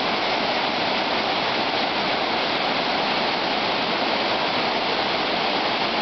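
Waterfall pouring into a rock plunge pool, heard up close in its spray as a steady, unbroken rush of falling water.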